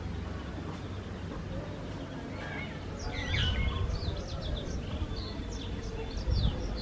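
Village weavers chattering: a busy run of quick, short chirps and sliding notes that starts about two seconds in, over a steady low background rumble.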